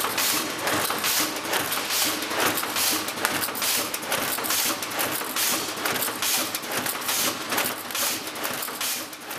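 Automated production line for blank number plates running, a steady mechanical clatter of repeated clacks, roughly two a second, over a constant machine hum, fading out at the end.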